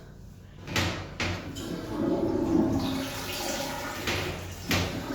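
Toilet flushing: a rush of water starts under a second in and keeps running and swirling through the bowl.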